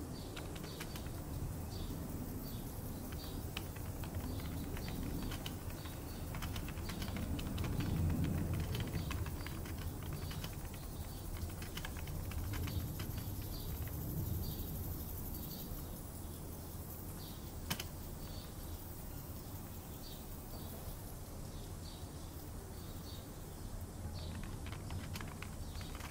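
Typing on a computer keyboard: a run of quick, irregular keystrokes. Behind it is a low rumble that swells about eight seconds in and again around fourteen, and one sharper click comes about two-thirds of the way through.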